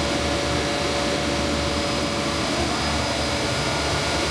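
Electric machine running steadily, a constant loud hum with a steady whine over a rushing noise.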